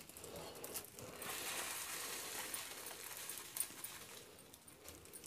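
Faint stirring and scooping with a spoon in a steel bowl of mango pickle, with a few light clinks.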